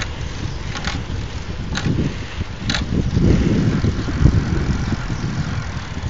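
Wind buffeting the microphone of a phone carried on a moving bicycle: an uneven low rumble that grows stronger about halfway through. Light ticks come about once a second during the first three seconds.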